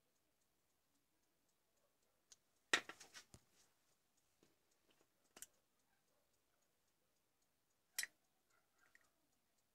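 Plastic shell of a small USB charger being handled and pulled open: a quick cluster of clicks and knocks about three seconds in, another click in the middle, and a single sharp click near the end.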